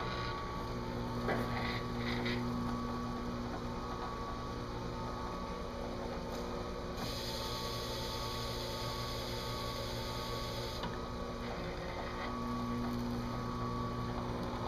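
Drill press running steadily with a motor hum while its spinning abrasive pad is pressed onto a metal dashboard plate to engine-turn swirls into it. A brighter hiss comes in for about four seconds midway.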